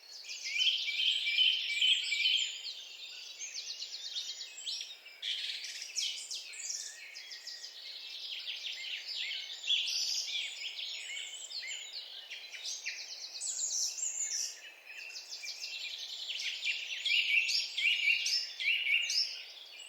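Several birds singing and chirping at once, many quick trills and short calls overlapping throughout.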